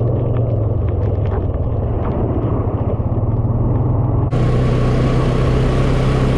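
Honda Rancher 420 ATV's single-cylinder engine running at a steady riding pace on a wet trail, with a few short ticks from the tyres and trail early on. About four seconds in, a louder hiss abruptly joins the engine sound.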